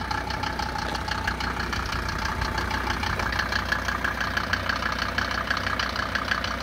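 Mercedes-Benz W124 250 Turbodiesel's five-cylinder turbodiesel idling with a steady, rhythmic clatter, the typical clatter of a Mercedes diesel.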